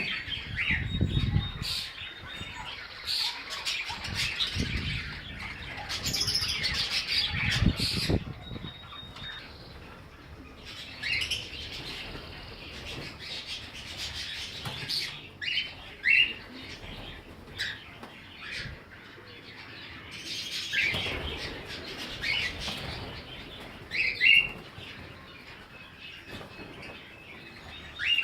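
Small ornamental parrots chirping in short, repeated calls, with bouts of wing flapping now and then.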